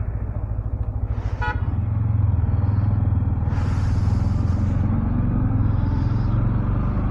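Yamaha MT-15's single-cylinder engine running under way, getting louder about two seconds in and rising slightly in pitch later as it speeds up. A short horn toot about a second in, and a rush of wind noise in the middle.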